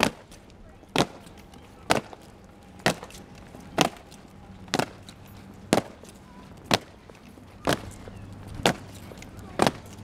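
Soldiers' boots stamping in unison on stone paving in a slow ceremonial march, one sharp stamp about every second.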